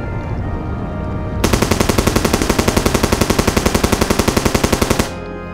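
Machine-gun fire: one rapid, even burst of about three and a half seconds that stops abruptly. It starts about a second and a half in, over music with held notes.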